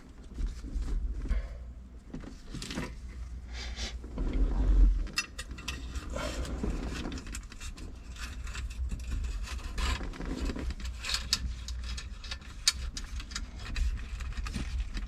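Turn signal switch wires being worked through a steering column by hand: scattered small clicks, light rattles and scraping of wire and metal parts, with a few dull bumps.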